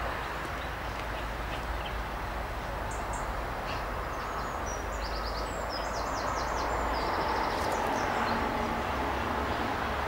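Songbird singing: a run of quick high notes and short trills from about four to eight seconds in, over the steady hum of road traffic.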